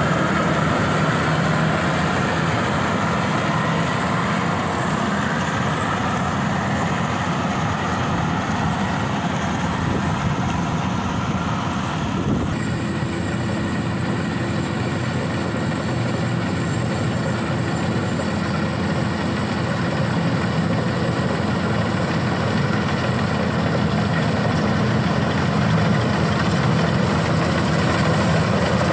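Rice combine harvester running: steady engine and machinery noise, with a shift in the machine's note about twelve seconds in, after which a steady hum is heard.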